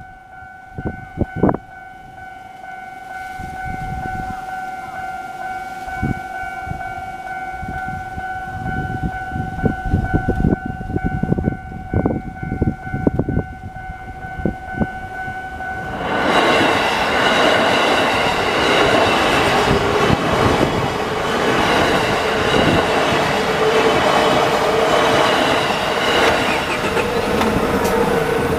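Japanese level-crossing warning bell ringing with steady tones. About halfway through, a JR Yokohama Line train passes over the crossing, and its rumble and clatter on the rails cover the bell.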